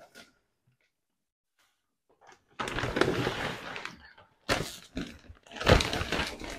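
A cardboard shipping box being handled: a scraping, rustling noise a few seconds in, lasting about a second and a half, then a few knocks and bumps as the box is shifted.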